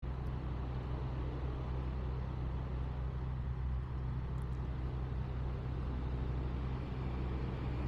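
International Harvester 1600 truck's engine running at a steady low speed as the truck drives slowly, with an even, low-pitched note.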